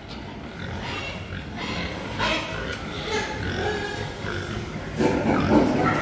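Several domestic pigs calling with short grunts, louder for the last second or so.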